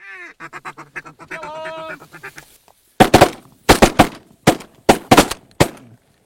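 Canada geese honking in a fast run of calls, then a rapid volley of about eight shotgun blasts from several guns.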